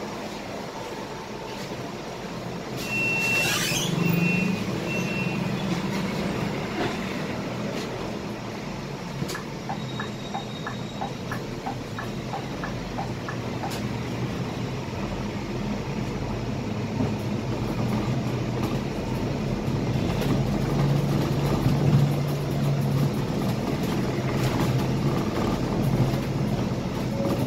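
Scania K320 IA articulated bus under way, heard from the driver's seat: steady diesel engine drone with road noise. About three seconds in comes a short hiss of air with a few short high beeps, and from about nine to fourteen seconds a run of even ticks, about two a second.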